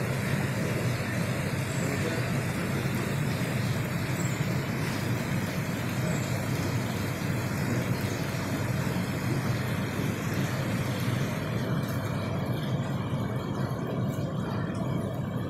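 Steady rushing, splashing noise of water bubbling up from a small pot-shaped fountain into an ornamental pond; the hiss thins out about twelve seconds in.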